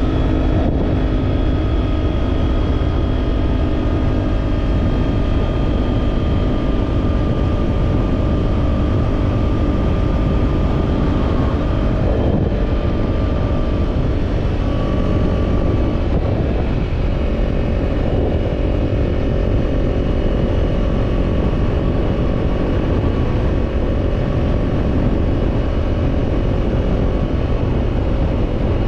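Kawasaki parallel-twin motorcycle engine running through an Orion Katya slip-on exhaust at a steady cruise, its note shifting only slightly now and then, over heavy wind rumble on the microphone.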